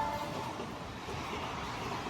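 The tail of an Indian electric locomotive's horn dies away at the very start. Then comes a steady rushing noise of the train running by.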